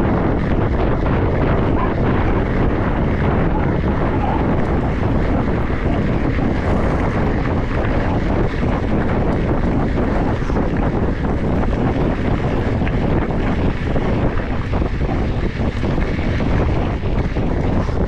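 Steady wind rumble on a GoPro Hero 10 microphone while riding a mountain bike, a loud, even rush with no breaks.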